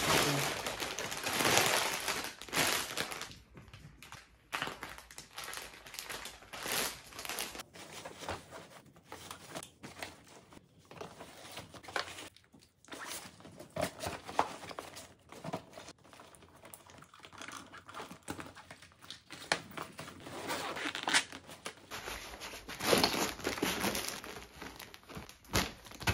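Clear plastic vacuum storage bags full of clothes crinkling and rustling as they are handled, pressed flat and packed into a suitcase, in irregular bursts.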